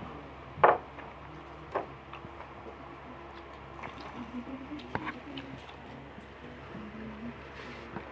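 Eating and table noises: a few sharp clicks and taps, the loudest about a second in, among faint mouth and chewing sounds over a low hum.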